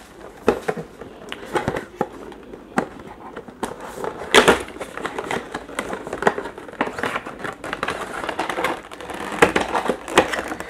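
Small cardboard retail box and its plastic-wrapped contents being handled and opened: irregular rustling, scraping and sharp clicks, with one louder scrape or knock about four seconds in.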